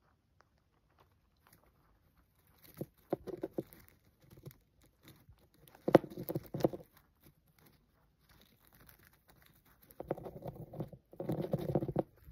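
A dwarf hamster gnawing an unshelled peanut, the shell crackling and crunching in three spells of rapid clicks, the longest near the end.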